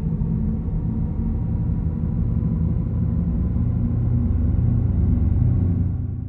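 Audi RS e-tron GT's synthesized electric drive sound: a low, steady hum with faint whining tones above it, fading out near the end.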